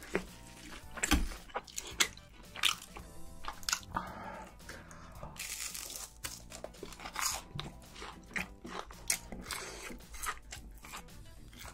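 Close-up crunching and chewing of a fried snack stick with a crisp black crust of crushed ghost pepper chips: repeated sharp, crackly crunches as it is bitten and chewed.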